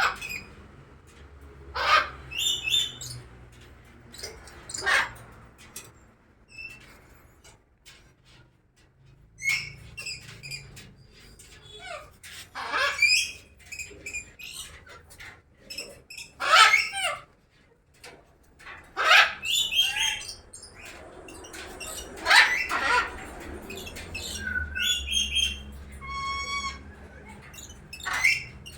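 Caged birds calling in irregular bouts: loud, harsh squawks and chirps, with a few clear whistled notes near the end.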